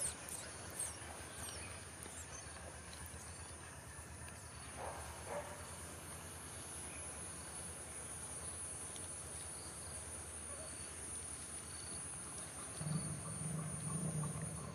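Insects keep up a steady high-pitched drone. A couple of brief short calls come about five seconds in, and a low hum joins near the end.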